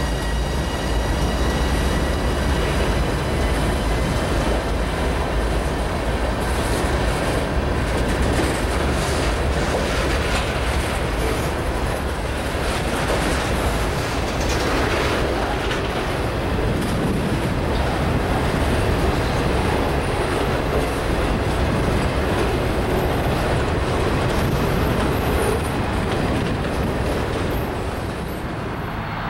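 Freight train's cars (covered hoppers, boxcars and tank cars) rolling past: a steady rumble of steel wheels on rail with some clickety-clack. A thin high whine fades out over the first few seconds.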